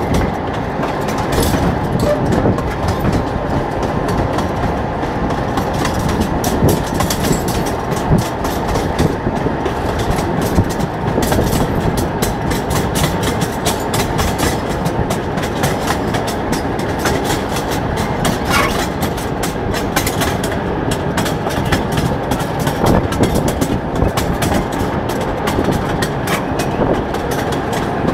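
Railway draisine running along the track, its wheels clattering over the rails with a steady rumble and a stream of short clicks.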